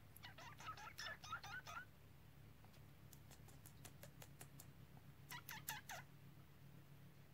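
A cat making rapid chirping, chattering calls in two bouts: one lasting nearly two seconds just after the start, and a shorter one about five seconds in.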